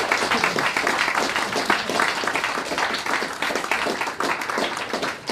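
Audience applauding: many hands clapping at once, irregular and continuous.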